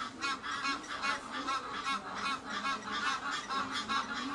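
A flock of geese honking: a dense, unbroken run of short, overlapping calls, several a second.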